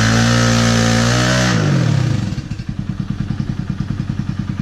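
Kawasaki KLX110's small single-cylinder four-stroke engine held at high revs, then dropping off about a second and a half in and settling to a pulsing idle.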